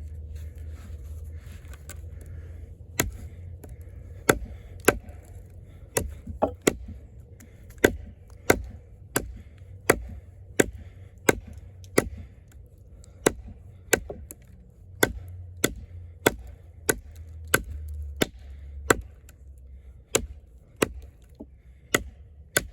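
Eafengrow EF-143 fixed-blade camp knife, with its thick AUS-10 steel blade, chopping into wood: a steady run of sharp strikes, about one and a half a second, starting about three seconds in, over a low rumble.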